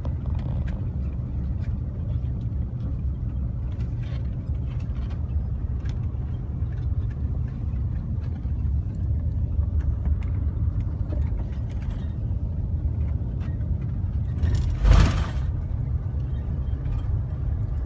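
Steady low road and engine rumble heard inside a moving car's cabin, with faint scattered ticks. About fifteen seconds in, a brief, louder rush of noise.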